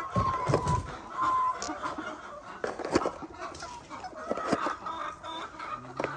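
Laying hens clucking, with two short calls about a second apart near the start. Scattered knocks and rustling sound in among the calls.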